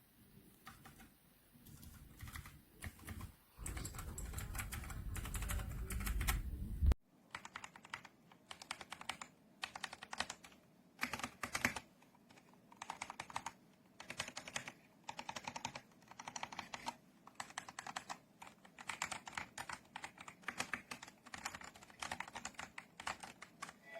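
Typing on a KOORUI full-size mechanical keyboard: fast runs of key clicks in bursts with short pauses. In the first few seconds a loud low rumble sits under the clicks and then cuts off abruptly.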